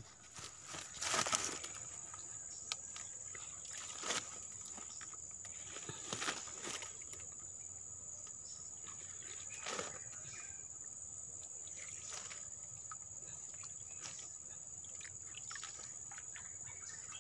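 Steady high-pitched insect drone, with a few scattered rustles and light knocks from hands working among dead leaves and twigs, the loudest about a second in.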